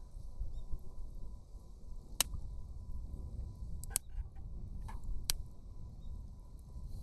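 Campfire of thick logs burning: a low steady rush with a few sharp crackling pops of the wood, the clearest about two, four and five seconds in.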